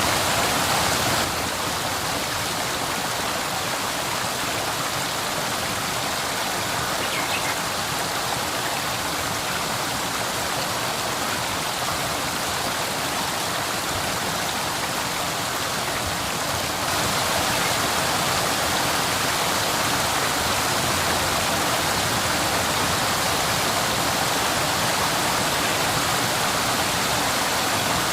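Waterfall water rushing and splashing in a steady roar of noise, with no other sound. The level drops suddenly about a second in and rises again a little past halfway, as from one waterfall to another.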